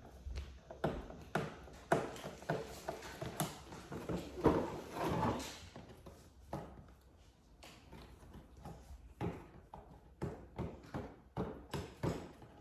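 Irregular taps, knocks and rustles of a cardboard box being handled while its packing tape is cut open with a knife, with a longer rasping rustle about four to six seconds in.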